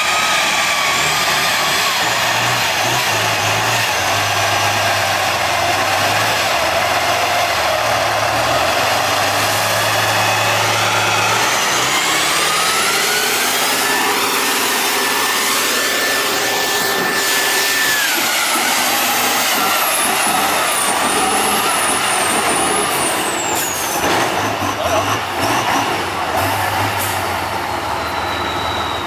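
Tatra 813 8x8 trial truck's diesel engine working hard under load on a steep climb, a loud, steady racket with whining tones that rise, hold and fall with engine speed.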